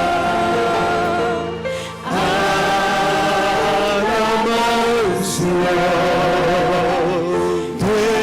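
Christian worship music, with voices holding long, wavering notes over a steady accompaniment. The music drops briefly about two seconds in and again near the end, between phrases.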